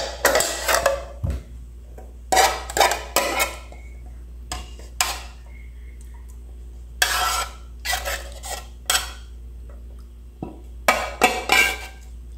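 Kitchen utensil clinking and scraping against a cooking pot and a glass jar in short clattering spells while thick homemade pineapple-and-onion syrup is spooned into the jar.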